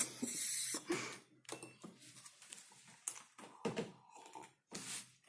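A person handling a cup of iced latte and drinking from it, with soft sips and swallows and a few light knocks of the cup.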